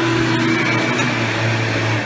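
Hoover Power Drive Supreme self-propelled upright vacuum cleaner running steadily while vacuuming, its Quadraflex brush roll spinning. A steady motor hum with a high whine over a hiss, with faint ticks of debris.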